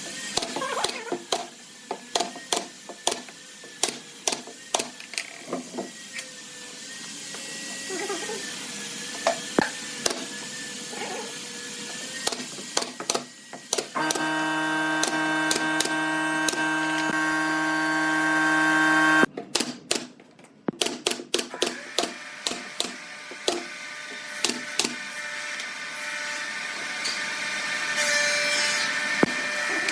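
Workshop sounds of wood being worked: irregular sharp knocks and clicks, with an electric power tool running steadily for about five seconds in the middle, cutting off suddenly.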